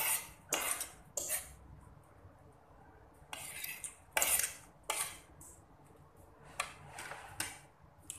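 Metal spoon and fork scraping and clinking against a ceramic plate as food is gathered and scooped up. The sounds come in short separate bursts with pauses between them.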